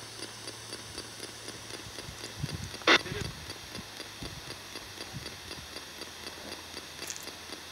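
Ghost box scanning: a steady hiss and hum chopped by faint, even clicks at about four or five a second, with one brief loud burst about three seconds in.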